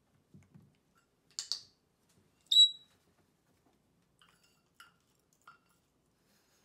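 A few soft knocks and two sharp clicks as the toy dish is set down on the table, then an African grey parrot gives one short, high, slightly falling whistle, the loudest sound, followed by a few faint soft chirps.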